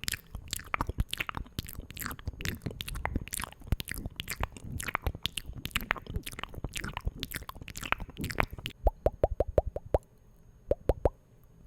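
ASMR mouth sounds close to the microphone: dense wet clicks and pops with short falling sweeps, changing near the end to quick runs of evenly spaced hollow pops separated by short pauses.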